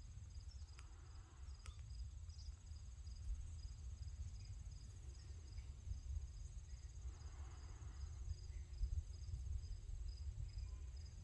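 Crickets chirping steadily in a high, pulsing trill, over a low rumble.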